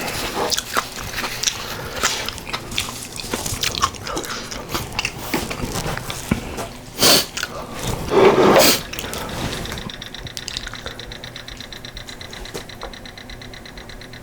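Close-up eating sounds of someone eating spicy beef soup with rice and kimchi: wet chewing and mouth clicks, with two louder slurps about seven and eight and a half seconds in, then quieter chewing.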